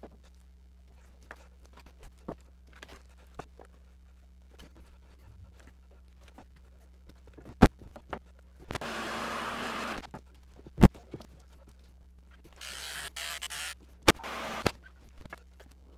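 Plastic squeegee scraping across epoxy-wet fiberglass cloth on a wooden paddle blade, in three strokes about a second long, the last two close together near the end. A few sharp clicks fall between the strokes.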